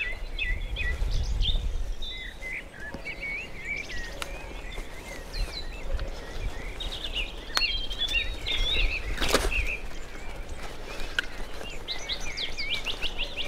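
Songbirds singing and calling, many short chirping notes, with a fast run of notes near the end. Underneath is a low rumble from the bicycle rolling along a dirt track, strongest in the first couple of seconds, and a few sharp clicks.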